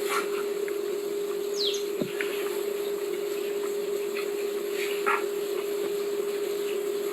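A steady hum with a few scattered faint cracks and clicks.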